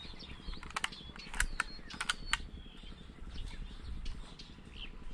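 Several sharp clicks and ticks in quick succession, about one to two and a half seconds in, over faint bird chirps.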